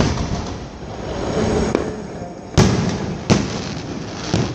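Fireworks exploding: a bang at the very start, two loud booms about two and a half and three seconds in, and a smaller one near the end, over steady background noise between them.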